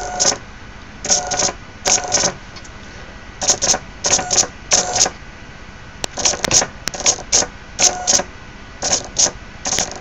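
Fischertechnik servo and power motor, driven over Bluetooth, whirring in many short bursts, a few each second, as the joystick is flicked back and forth.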